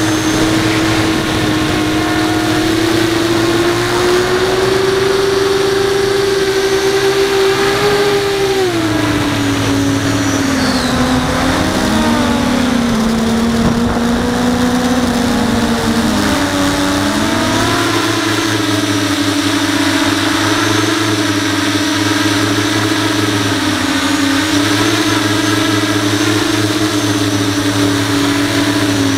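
A 5-inch FPV quadcopter's brushless motors and propellers buzzing loudly, recorded from the quad's onboard camera. The pitch rises and falls with the throttle: it drops about eight seconds in, wavers, and climbs back up around seventeen seconds before settling steady.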